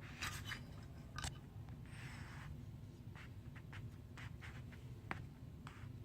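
Small Allen wrench turning the retaining screw of an AR-15 trigger guard: faint scattered clicks, with a brief scrape about two seconds in, over a low steady hum.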